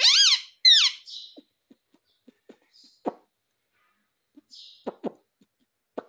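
Ringneck parrot giving two loud, shrill calls in the first second, the second sliding down in pitch, followed by a few seconds of scattered soft clicks and taps.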